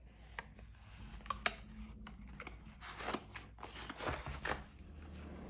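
Hands handling a cardboard crayon box: rustling and scraping with a few sharp taps and clicks, the sharpest about one and a half seconds in.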